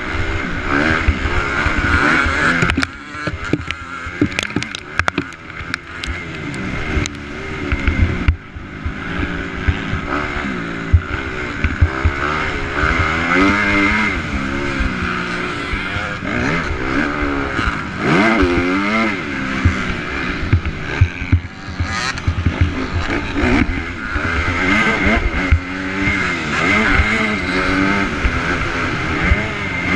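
A 250 dirt bike engine revving up and down over and over as it is ridden hard round a motocross track, dropping off briefly at a few points, with wind noise on the mic and sharp knocks now and then between about 3 and 8 seconds in.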